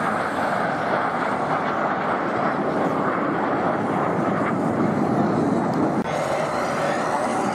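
Jet noise from a formation of Alpha Jets flying past, a steady rushing sound from their Larzac turbofan engines, with an abrupt drop and change in the sound about six seconds in.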